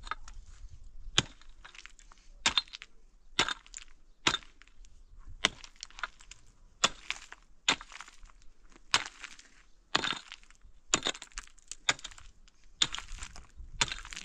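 A pickaxe striking stony, shale-strewn ground, about one blow a second. Each blow is a sharp crack on rock, and some are followed by a brief rattle of loose stone.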